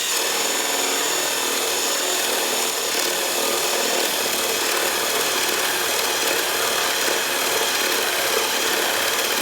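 Power drill running steadily with a repaired paddle bit, boring a hole through wood: a motor whine over the rough grinding of the bit cutting in.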